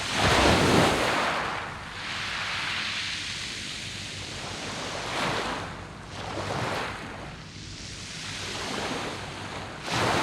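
Sea waves washing onto a pebble beach, a rushing wash that swells and fades. The biggest surge comes in the first second and a half, with smaller ones about halfway through and again near the end.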